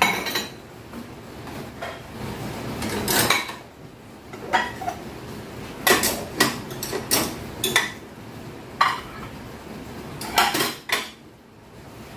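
Ceramic plates and bowls clinking against each other and the wire rack as they are stacked into a wall-mounted dish-drying cabinet: a string of separate sharp knocks with short pauses between, ending about eleven seconds in.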